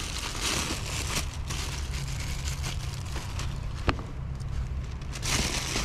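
Plastic bread bag rustling and crinkling as a slice of bread is taken out, with one sharp click a little before four seconds in, over a steady low rumble.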